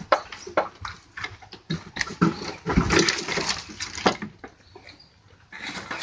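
Goats with a cold stirring in a wooden pen: several sharp knocks and short noisy bursts of breath, coughing and snorting, the loudest cluster about halfway through.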